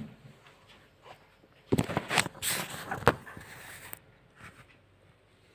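Handling noise from a phone being picked up and moved: a burst of rustling, scraping and knocks lasting about two seconds, starting a little under two seconds in.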